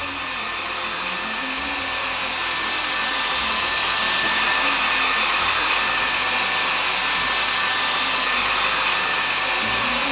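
Hand-held hair dryer running steadily, a rush of air with a thin fan whine, swept over a freshly painted canvas to dry the paint. It grows a little louder over the first few seconds, then holds.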